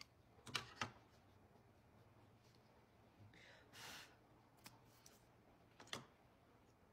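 Near silence with a few short, sharp clicks: two close together about half a second in and one about six seconds in, with a brief soft rustle or breath in between.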